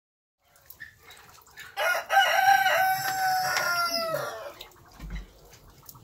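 A rooster crowing once: one long call of about two and a half seconds that holds its pitch and then drops away at the end.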